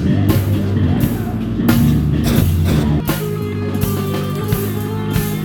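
Improvised band music: guitar over a drum kit, with repeated drum and cymbal hits.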